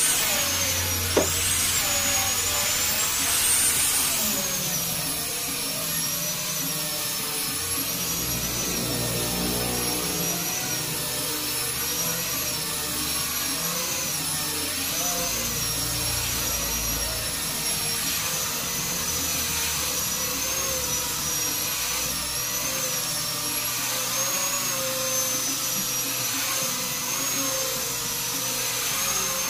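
Electric hand grinder fitted with a sanding disc, running steadily as it sands the flat top of a teak cabinet. Its high motor whine wavers in pitch as the pad is pressed and moved over the wood, with a single sharp click about a second in.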